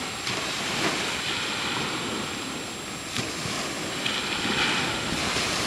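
Ocean chop washing and splashing, with wind blowing on the microphone; a couple of brief sharper splashes stand out.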